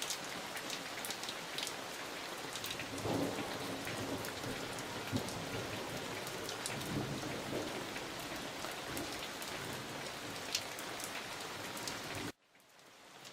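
Steady rain falling, an even hiss with scattered sharp drop ticks; it cuts off suddenly near the end.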